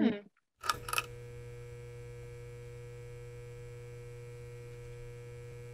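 Electric buzz of a neon sign as a sound effect: two sharp clicks about a second in as it flickers on, then a steady hum.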